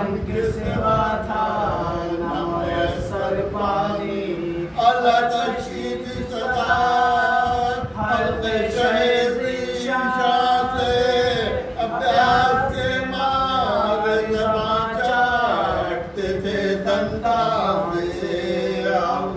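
A man chanting a marsiya, an Urdu elegy for Muharram, in a melodic, drawn-out recitation of long held phrases with short breaks between them.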